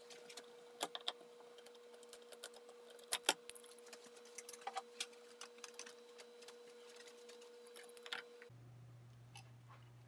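Scattered light clicks, taps and scrapes of a screwdriver working the mounting screws of a wall light switch and of the switch being handled and pulled out of its electrical box.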